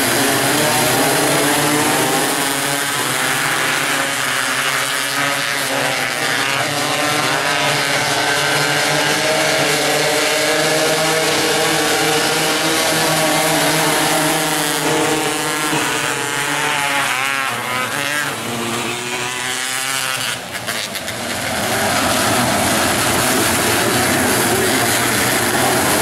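Engines of a pack of 270 micro sprint cars running together on a dirt oval, their revs rising and falling as the cars circle the track, with a short dip in level near the twenty-second mark.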